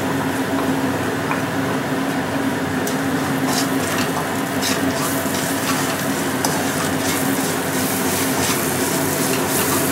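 Onions frying in hot mustard oil, sizzling steadily as ground spices are added and stirred in, with a few light scrapes of a wooden spatula against the pan between about three and six and a half seconds in.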